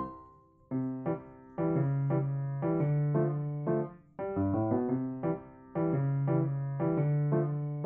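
Background music: chords struck about once a second in short phrases, each fading away before the next.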